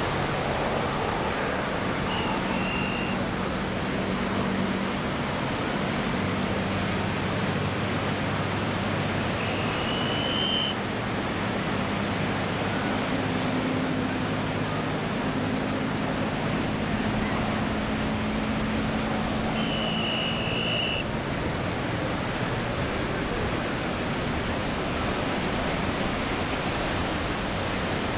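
Steady rushing noise of surf and wind, with the distant Packard Merlin V-12 of a P-51D Mustang droning faintly underneath, its pitch shifting as the plane manoeuvres. Three short high chirps come through it, about 2, 10 and 20 seconds in.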